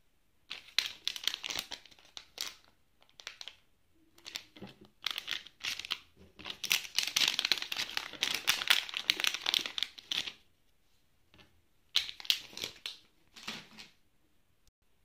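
A thin clear plastic bag crinkling as it is handled and opened to take out satin bows, in several bursts of crackling, the longest and loudest in the middle.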